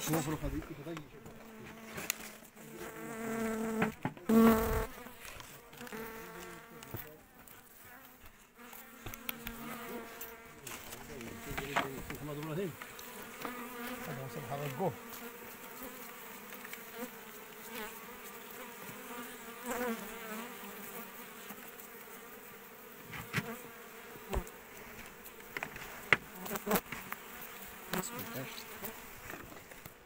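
Honeybees buzzing around their opened nest as the comb is taken out, a droning hum that wavers in pitch. Scattered knocks and rustles from handling come through it, with one loud thump about four seconds in.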